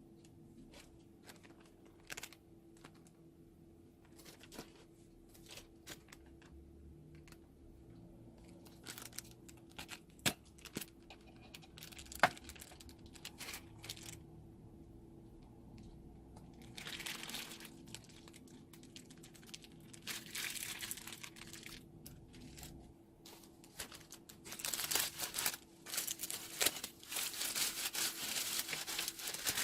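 Slime being squeezed out of a plastic piping bag: scattered soft crackles and sharp little clicks, which build near the end into dense, louder crinkling and crackling.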